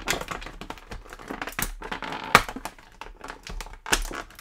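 Thin clear plastic packaging crinkling and crackling as it is handled, in irregular sharp crackles. The loudest crackle comes a little past two seconds in.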